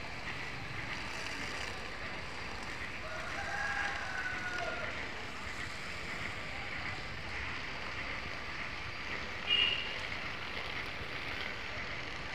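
A rooster crows once, a drawn-out call about three to five seconds in, over a steady background hiss. A brief high chirp, the loudest sound, comes about nine and a half seconds in.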